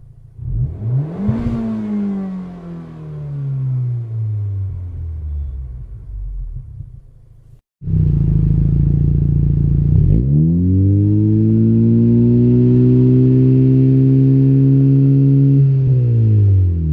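Honda 1.5-litre turbocharged four-cylinder of an 11th-gen Civic Si / Integra revving through aftermarket exhausts. First, through a Spoon Sports N1 muffler kit, one rev climbs quickly and then falls away slowly. After a sudden cut, through a Megan Racing single-exit exhaust, the engine rises about two seconds later to a held rev, steady and louder, then drops back near the end.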